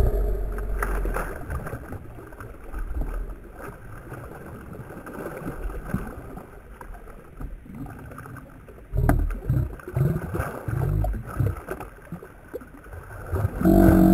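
A hooked speckled trout splashing and thrashing at the surface beside a kayak as it is played to the landing net, with a louder splash near the end as the net scoops it out of the water.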